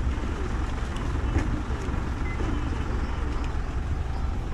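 City street traffic noise: a steady low rumble of vehicles, with a bus standing at the stop beside, and a few faint clicks.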